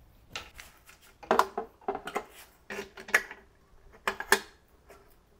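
Irregular clicks, knocks and rattles of cables, plastic connectors and the e-bike controller being handled and pushed down into the frame's housing. The loudest clatters come about a second in and again near four seconds.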